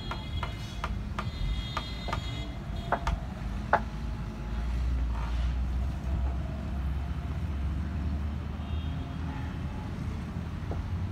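Long bamboo pole clicking, knocking and creaking in a wooden bending frame as it is levered to straighten it. A string of sharp clicks runs through the first four seconds, the loudest near four seconds in. After that a steady low rumble continues.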